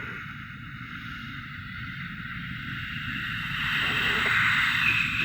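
Wind sound effect: a steady rushing hiss of blowing wind with a low rumble underneath, swelling louder about three and a half seconds in.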